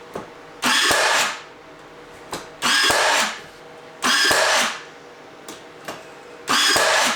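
Power drill run in four short bursts of about half a second each, spaced a second or two apart, as when driving screws.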